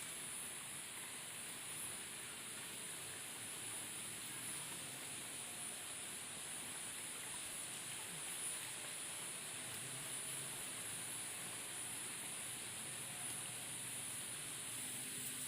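Steady outdoor ambience of a small stream flowing, an even wash of noise with a steady high hiss above it and no distinct events.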